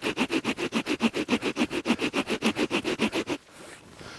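Orrefors pocket chainsaw, a bare chainsaw chain pulled back and forth by its two hand straps, sawing through a tree trunk about 15 cm thick: a fast, even rhythm of cutting strokes, about six a second, that stops about three seconds in.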